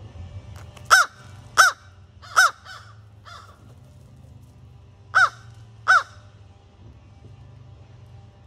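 American crow cawing: three loud caws in quick succession about a second in, a fainter fourth caw, then two more caws a couple of seconds later.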